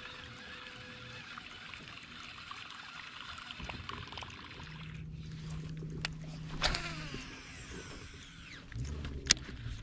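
Water trickling and lapping against a fishing boat's hull, with a low steady hum coming in about five seconds in and again near the end, and two sharp clicks.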